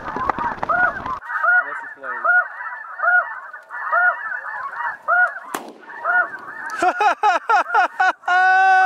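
Snow goose calls: a regular series of high, yelping honks, about one and a half to two a second. Near the end the calls crowd and overlap with quick clicks, followed by one long held note.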